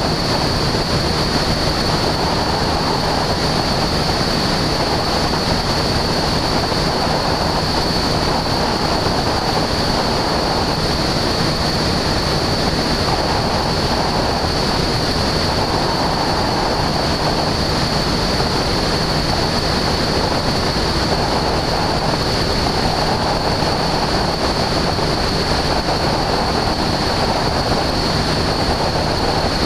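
Steady in-flight noise of a Husky A-1C light aircraft in cruise: engine drone under the rush of wind over the camera microphone, with a thin high whine held throughout.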